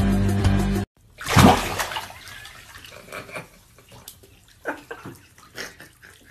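Background music stops just under a second in. Then a loud rush of splashing water in a bathroom fades away over about a second, followed by quieter sounds and a few short vocal sounds.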